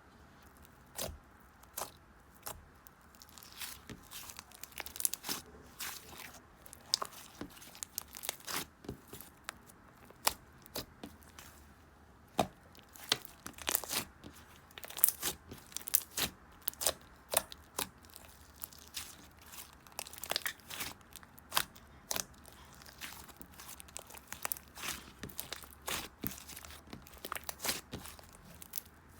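A run of irregular sharp crackles and tearing sounds. They are sparse for the first few seconds, then come several a second.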